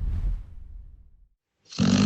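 Dog snoring. A low, rumbling breath fades out in the first second, then after a short silence a loud snore with a buzzing pitch starts near the end.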